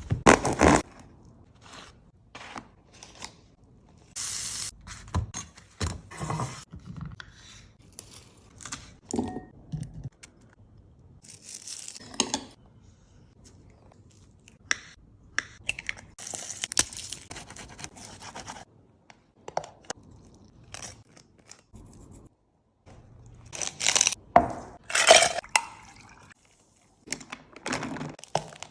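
Intermittent kitchen food-preparation sounds: scrapes, taps and clinks of utensils and dishes, and rustling, in separate short bursts with a few louder clusters.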